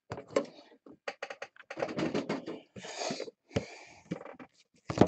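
Trading-card boxes being handled on a tabletop: a run of light clicks and knocks, with a short scrape about three seconds in.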